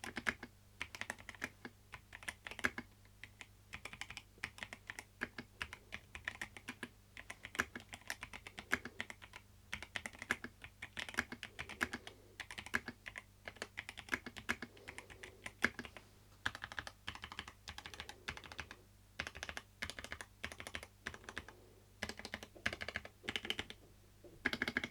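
Typing on a Machenike K500F tenkeyless mechanical keyboard with linear switches: a fast, uneven run of key strokes in bursts, with a slightly dampened clack.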